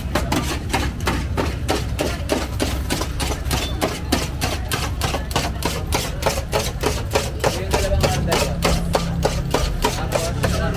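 A large knife rapidly chopping shawarma meat on a round steel tray, a quick, even run of knife-on-metal knocks at about five a second.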